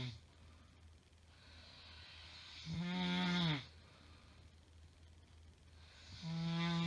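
A woman snoring, each snore a loud, pitched rattle lasting about a second, repeating every three and a half seconds or so: one ends as the sound opens, a full one comes about three seconds in, and another starts near the end, with quieter breathing between.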